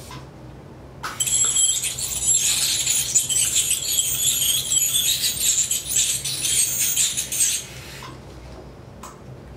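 Small electric hair trimmer running against a dog's face, a high-pitched hissing buzz that starts about a second in and cuts off after about six and a half seconds, clipping fur around a facial (carnassial tooth) abscess.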